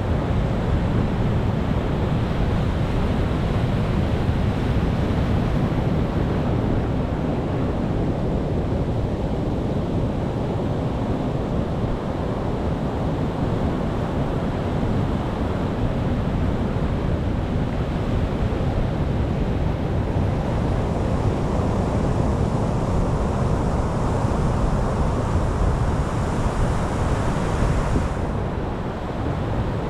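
Sea waves breaking on a shore: a continuous rush of surf with a heavy low rumble, swelling and easing slowly. A brighter, hissier wash builds in the second half and drops away shortly before the end.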